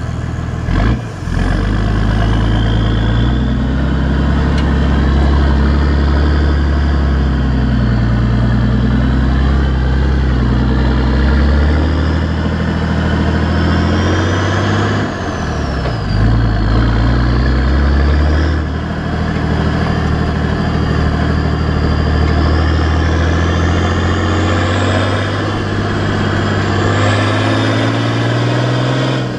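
Exhaust note of a Nissan TD42T 4.2-litre straight-six turbo-diesel, heard at the tip of its 3-inch exhaust with one small muffler while the vehicle drives under load. The note drops and picks up again about a second in and twice around the middle. A thin high turbo whistle rises and falls over the engine note.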